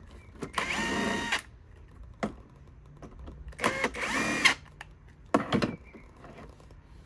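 Cordless drill-driver running in two short bursts of about a second each, a few seconds apart, with a steady motor whine, working screws in the mower's plastic housing. Sharp clicks and knocks come between and after the bursts.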